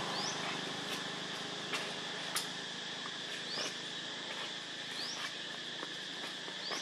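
Steady high-pitched insect drone, with a short rising high chirp repeating about every one and a half seconds and a few faint clicks.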